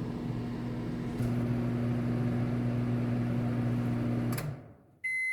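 Microwave oven running with a steady hum, a little louder from about a second in, then shutting off about four seconds in at the end of its cooking cycle. A high electronic beep follows near the end, the signal that it has finished.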